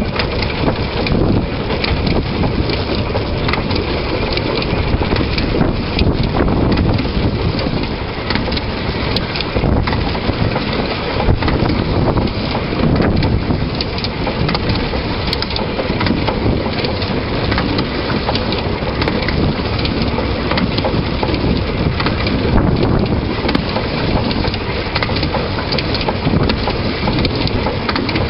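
Narrow-gauge train running along the track, heard from a camera mounted at the front of the locomotive: a steady rumble and clatter of wheels on rail, with wind buffeting the microphone.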